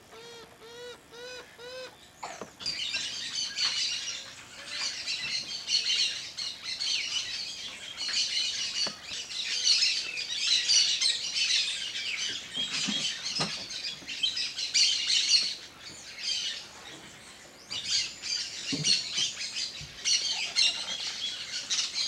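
A quick series of short repeated calls, about four a second, for the first two seconds, then many birds chirping and twittering together in a dense, high-pitched chorus, with a couple of brief lulls.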